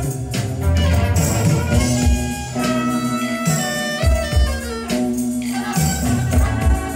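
A live band playing a song: continuous music with low bass notes, held higher notes and cymbals.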